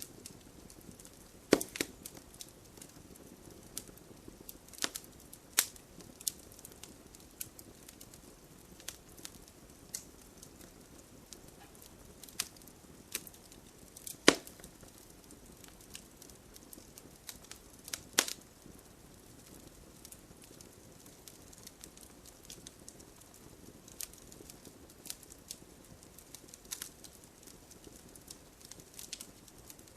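Fireplace fire crackling, with irregular sharp pops and snaps over a low hiss; the loudest pops come about a second and a half in, around fourteen seconds in, and around eighteen seconds in.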